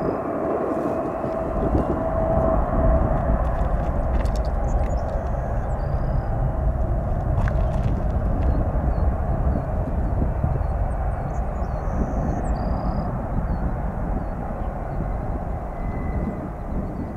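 Boeing 787-9 Dreamliner's jet engines, a steady rushing noise with a thin whine for the first few seconds, easing off slowly over the second half.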